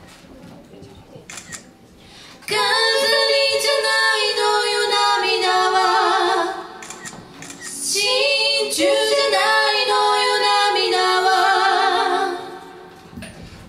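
An a cappella group sings slow, held chords in harmony, led by women's voices, in two phrases, each fading away. The first starts about two and a half seconds in after quiet room noise, and the second about eight seconds in.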